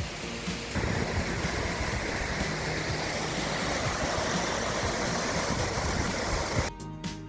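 Steady roar of rushing water, a waterfall or fast mountain river, coming in about a second in and cutting off abruptly near the end, where background music takes over; music plays faintly at the start.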